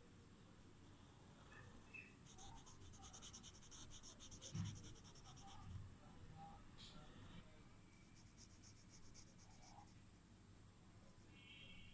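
Faint scratching of a drawing tool stroking across paper, in two stretches of quick strokes, with a thump about four and a half seconds in.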